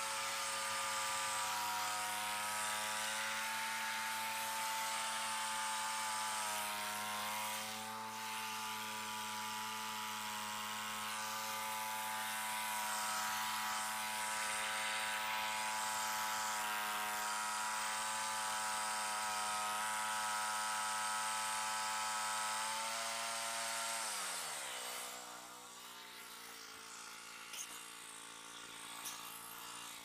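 Portable bandsaw sawmill's small gas engine running steadily at cutting speed as the blade saws through a white pine log. About 24 s in, the engine speed drops sharply to a lower, quieter idle as the cut finishes.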